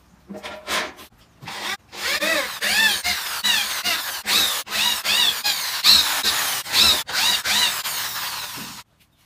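Cordless drill driving screws to fix a metal mesh grille onto a wooden subwoofer cabinet. The motor whine rises and falls in short pulses, about two a second, after a few knocks in the first couple of seconds.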